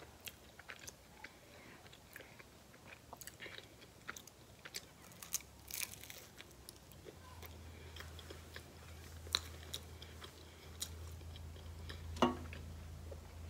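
A person biting into and chewing a Hot Pocket close to the microphone: soft, wet chewing with many small crackly clicks and mouth noises, and one sharper click near the end. A low steady hum comes in about halfway through.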